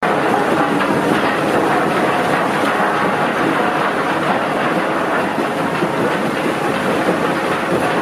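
Wheel-type sand washing machine running, its steel bucket wheel turning through muddy sand-and-water slurry. The noise is loud and steady, with no pauses.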